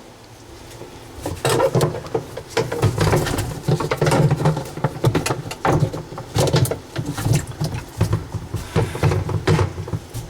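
Irregular knocking, clattering and rattling of parts being handled and fitted inside a dishwasher tub, starting about a second and a half in and going on in uneven bursts almost to the end.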